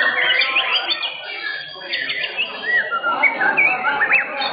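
White-rumped shama (murai batu) song: quick whistled notes that rise and fall, clearest from about three seconds in, over a crowd's chatter.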